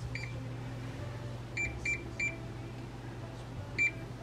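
Electronic key beeps from a glass-top electric cooktop's touch controls as a burner is switched on and set to 5: five short high beeps, one at the start, three in quick succession in the middle and one near the end, over a low steady hum.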